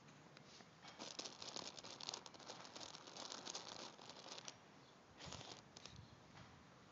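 Faint, quick crackling and rustling of a hen pecking and tearing at grass, a run of small clicks that dies away a little past halfway.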